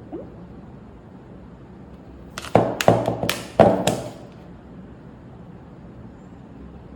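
A quick run of about five sharp knocks within a second and a half, starting about two and a half seconds in, over a steady low hum.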